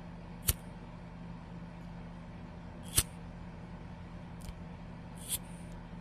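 Flint-wheel lighter being struck: four sharp clicks a second or two apart, the loudest about half a second and three seconds in, over a steady low hum.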